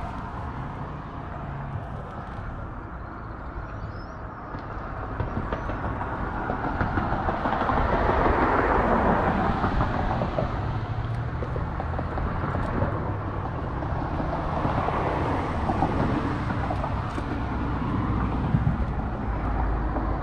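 Steady outdoor rumble and hiss with no clear single source, swelling gradually from about four seconds in to a peak around eight or nine seconds.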